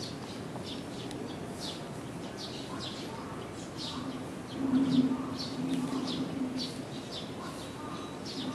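Small birds chirping in short high notes again and again over steady outdoor background noise, while a dove coos from about halfway through in a series of low, half-second coos.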